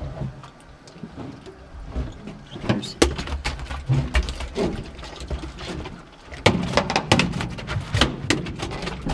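Irregular sharp knocks and thumps on a fishing boat's metal deck around a freshly landed Pacific halibut. The knocks are loudest about three seconds in and again at six and a half seconds, with a cluster after that, over a low rumble and faint voices.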